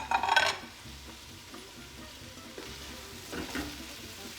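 Chopped onions sizzling in hot olive oil in a stock pot, with a utensil clattering against the pot as they are stirred: a loud clatter at the start and a smaller one about three and a half seconds in.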